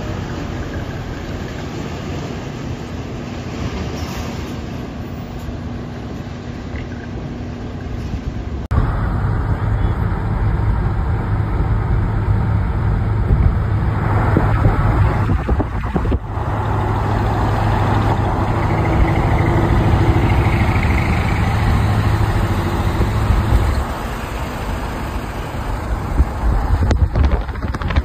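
Heavy truck engines running with road noise. About nine seconds in the sound cuts abruptly to a louder, steady low engine drone with tyre noise, heard from inside a moving vehicle.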